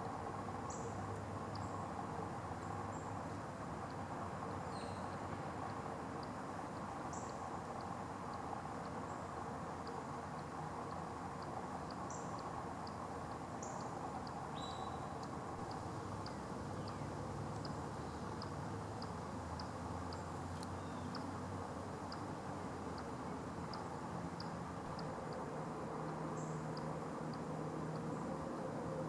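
Eastern chipmunk calling: a long run of short, high-pitched chips repeated evenly, about two a second, with a few higher squeaks scattered among them, over steady outdoor background noise.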